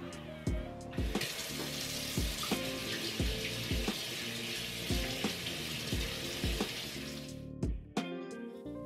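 Water running from a tap, starting about a second in and stopping near the end, over background music with a steady beat.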